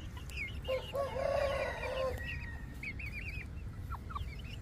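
A young rooster crows once, starting just under a second in and lasting about a second and a half, over many short, high, falling chirps from other chickens in the pens.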